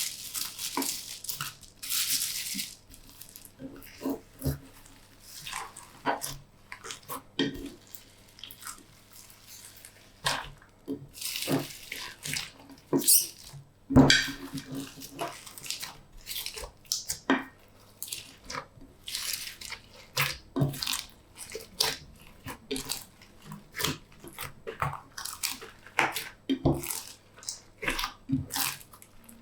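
Slime being kneaded and stretched by hand, giving irregular sticky clicks, pops and squelches.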